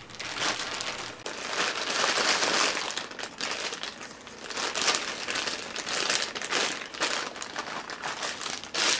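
Clear plastic bag crinkling and rustling as it is pulled open and peeled off a small model engine, in irregular handfuls, with a sharp louder crackle at the end.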